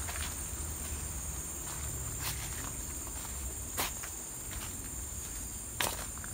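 Insects chirring steadily in high, unbroken bands of sound in tropical forest. A few footsteps crunch on a gravel path, about one every second or two.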